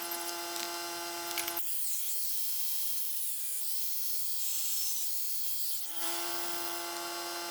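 Small 3.5-inch angle grinder with a cutoff disc whining at speed, then cutting a groove: from about one and a half seconds in, the steady whine gives way to a wavering pitch as the disc is in the cut, and near the end it whines freely again.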